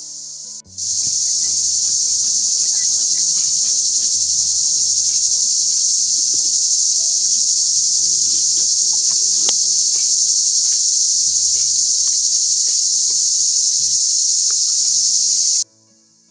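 A loud, steady chorus of insects chirring. It starts suddenly about a second in and cuts off suddenly near the end, over soft background music.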